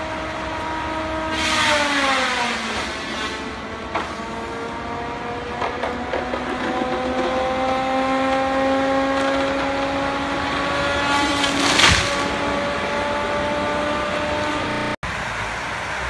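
Feller buncher working its saw head into standing trees: a steady high machine whine that drops sharply in pitch as the saw bites into a trunk about two seconds in, with a burst of cutting noise, then slowly winds back up. A second loud burst of cutting or crashing comes near the end.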